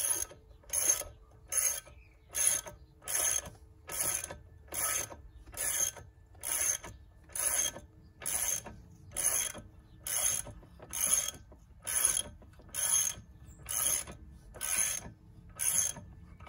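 Socket ratchet clicking in a steady rhythm, about one burst of clicks a little under every second, as the handle is swung back and forth to run the propeller nut onto an outboard's propeller shaft.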